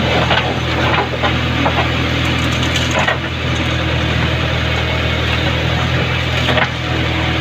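Backhoe engine running steadily under load while tree wood cracks and splinters in several sharp snaps.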